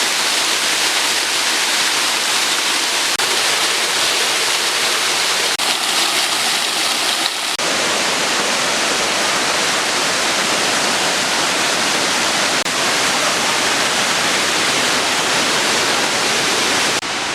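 Waterfall: a steady, loud rush of falling water. About seven and a half seconds in it becomes fuller and deeper.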